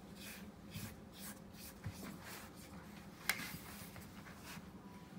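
Quiet handling of a ceramic bowl being lifted and tilted, with faint brushing and scraping sounds and one sharp tap a little after three seconds in.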